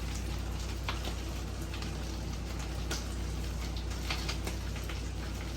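Shrimp, bell peppers and onions sizzling steadily in olive oil in a skillet, with a few light clicks.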